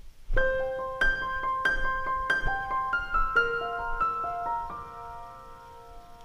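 Background piano music: a slow melody of single struck notes that starts about half a second in and fades toward the end.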